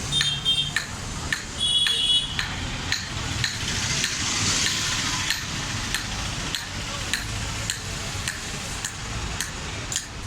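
Hammer blows on iron being forged into a sickle, struck at a steady pace of roughly one to two a second over a constant background rumble.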